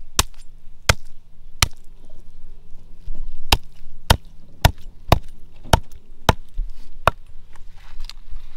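Machete chopping a squirrel carcass on a wooden log: about ten sharp blows, roughly two a second, with a pause of nearly two seconds after the third.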